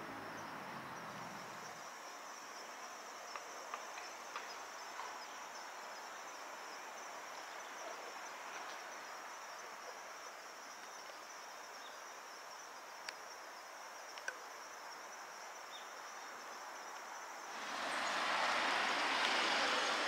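Steady high-pitched insect chorus with a few faint clicks. Near the end it gives way to a louder, even rush of noise.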